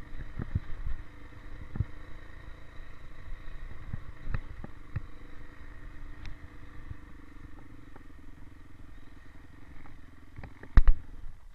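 Dirt bike engine running at low, steady revs while the bike rolls down a rough dirt trail, with repeated knocks and rattles as it bounces over bumps. There is one loud knock near the end.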